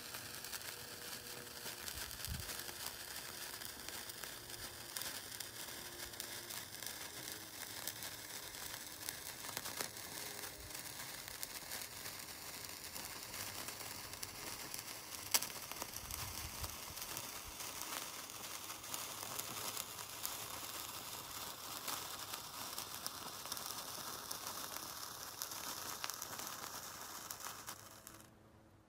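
Giant Legacy Sparkler from Standard Fireworks burning with a steady fizzing crackle of spitting sparks, one sharper crack about halfway. It fades away near the end as the sparkler burns out.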